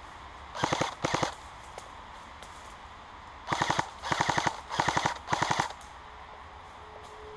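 Airsoft gun firing short rapid-fire bursts: two quick bursts, then after a pause four more in a row.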